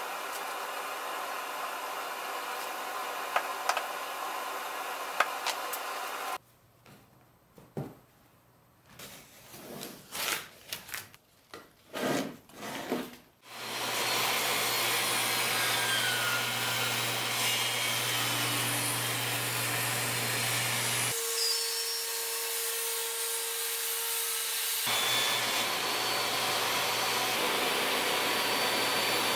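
Table saw running steadily with a low motor hum while a wooden box is pushed along the fence through the blade. The saw starts about halfway through; a few seconds later its sound changes to a steady single tone, then the saw sound returns. Before the saw, there is steady background noise with light clicks, then a quiet stretch with a few soft knocks.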